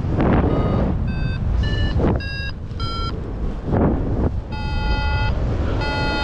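A paraglider's flight variometer beeping: about five short beeps whose pitch rises then falls, then two longer, lower tones near the end, the beeping signalling rising air. Wind rushes over the microphone throughout.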